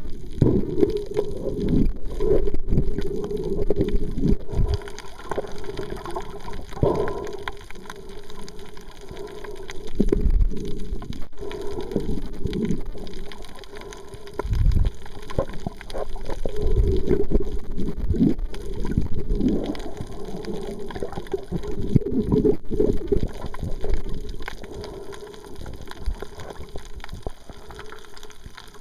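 Water heard from underwater: muffled low swishing and gurgling that comes in uneven surges every few seconds, fading toward the end.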